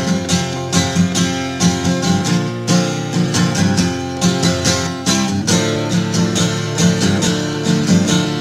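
Acoustic guitar strummed in a steady rhythm, about two strums a second, in an instrumental passage of a live rock song.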